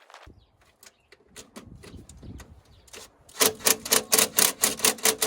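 Hand socket ratchet clicking rapidly, about seven clicks a second, for nearly three seconds from about three and a half seconds in, after a few scattered light clicks and knocks of tools being handled.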